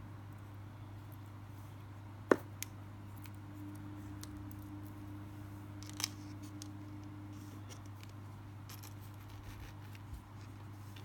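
Handling clicks as fingers work fishing line through a metal three-way swivel: one sharp click a little over two seconds in, a softer one just after, and another about six seconds in, with a few faint ticks later over a steady low hum.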